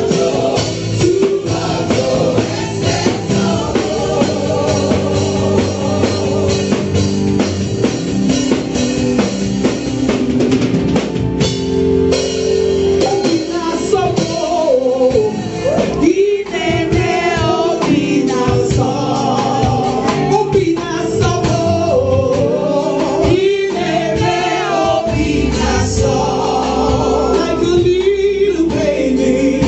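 Live gospel music: a woman sings lead into a microphone over a band with held chords and drums.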